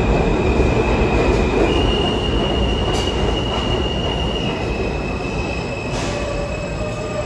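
New York City subway train moving through the station with its wheels squealing on the rails: a high steady squeal that steps up in pitch and later drops back, over a steady rumble, with a couple of sharp clicks. A lower whine comes in near the end.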